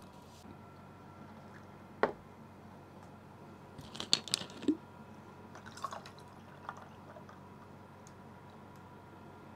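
A sharp knock, like a glass mug set down on a wooden board, about two seconds in; then a quick run of plastic clicks with a short hiss as a soda bottle cap is twisted open, followed by a few faint ticks.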